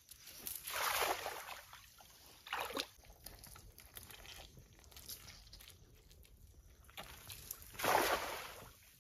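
Water sloshing and splashing as a cast net is worked in a shallow creek, in a few short rushes. Near the end the loudest splash comes as a thrown cast net lands on the water.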